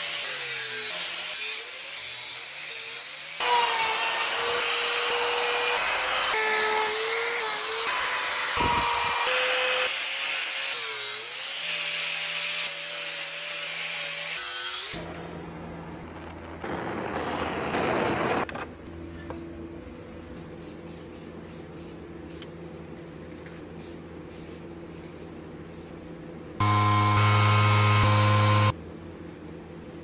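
Power tools carving and sanding wood, heard as a run of short clips: a loud angle-grinder whine that changes pitch from clip to clip through the first half, then a quieter steady hum broken by two brief louder stretches.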